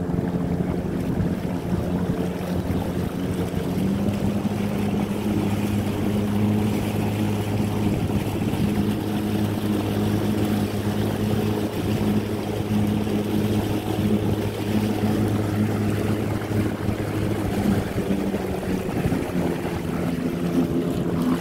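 Small motorboat's engine running steadily under way, with a constant low hum. Its note rises slightly about four seconds in and shifts again near the end.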